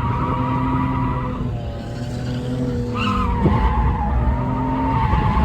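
Ford BA Falcon drifting on a skid pan: tyres squealing steadily over the running engine, whose revs drop away briefly and climb again about three seconds in.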